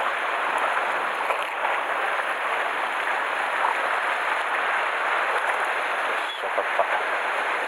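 Sea water washing and splashing against the rocks at the shoreline: a steady rushing hiss.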